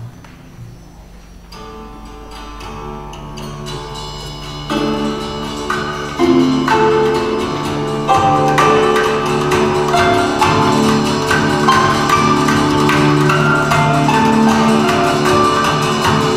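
Vietnamese traditional instrument ensemble of plucked lute, zither and percussion playing a piece that starts quiet and builds to loud within the first half, then keeps going at full strength.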